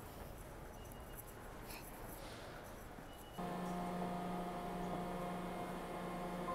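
Faint, quiet station ambience, then from about three and a half seconds in a steady electric hum with several held tones from a moving subway train, heard inside the car.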